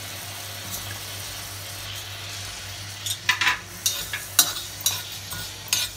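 Rice tipped onto a hot tawa beside urad dal, then a metal spatula scraping and stirring the grains as they dry-roast without oil, with several sharp scrapes from about halfway in.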